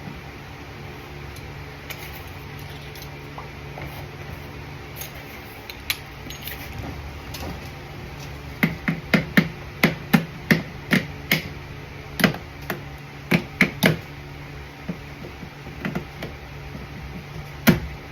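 Sharp clicks and knocks from hands and tools working parts loose inside a Lotus Emira door during door handle removal: a quick run of about a dozen over five seconds, a few scattered ones after, and one louder knock near the end, over a steady low hum.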